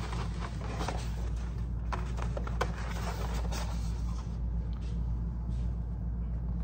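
Paper rustling and crackling as a signed paper poster is handled, with a few sharp crinkles, over a steady low hum.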